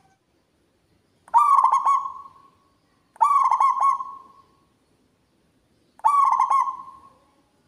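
Zebra dove (perkutut) singing its cooing song three times, each phrase a quick run of notes that trails off over about a second.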